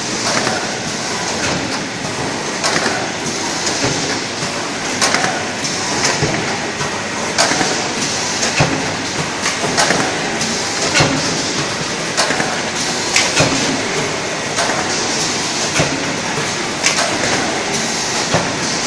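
Automatic rigid box making machine running: a steady mechanical clatter with sharp clacks from its moving parts about once a second.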